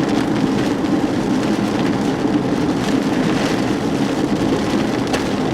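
Steady car noise: a low engine hum under an even hiss of wind and road.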